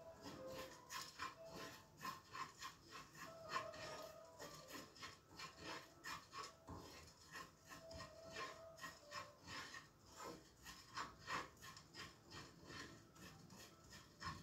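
Faint rhythmic scraping, about three strokes a second: a spoon stirring white sugar in a pan as it melts and browns into caramel.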